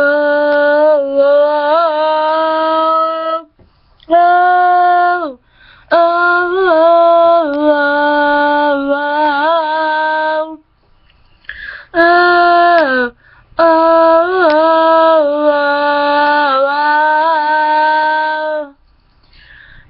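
A woman singing unaccompanied, holding long wordless "oh" notes in several phrases with short breaths between. Each phrase steps between a few pitches, and some end by sliding down.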